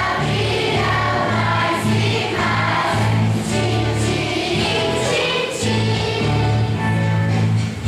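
Children's choir singing a song from a Christmas cantata over an instrumental accompaniment with a sustained bass line.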